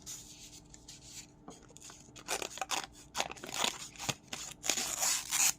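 Small spring-loaded multi-tool scissors snipping repeatedly in a quick, irregular series of short cuts, thickest in the second half. The scissors' spring and blades are new and stiff.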